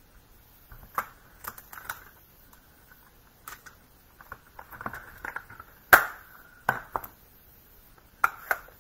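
Scattered plastic clicks and knocks of rubber-stamping supplies (ink pad, stamp case, acrylic block) being handled and set down on a desk, with one louder knock about six seconds in.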